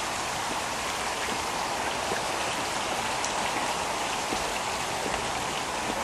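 Steady rushing of water, even and unbroken, with a few faint ticks scattered through it.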